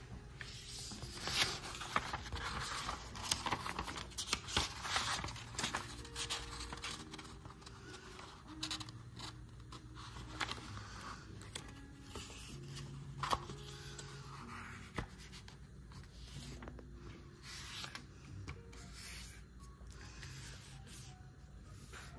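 A sheet of printer paper rustling and crinkling as it is handled, folded and creased by hand, with the busiest handling in the first several seconds. Soft background music plays faintly underneath.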